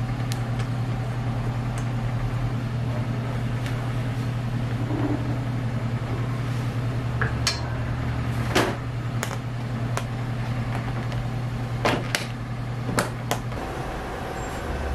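Steady low hum of kitchen equipment, with a handful of sharp clicks and knocks from a utensil working in a plastic tub of whipped cream during the second half. The hum stops shortly before the end.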